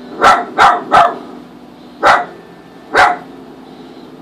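Maltese dog barking in short, sharp barks: three quick ones in a row, then two more spaced about a second apart.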